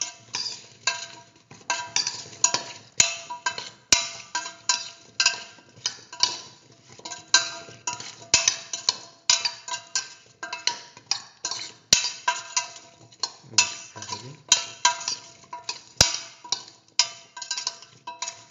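A spoon stirring diced yam and chayote in a stainless steel pressure cooker, scraping and clanking against the metal pot about twice a second, each stroke ringing briefly.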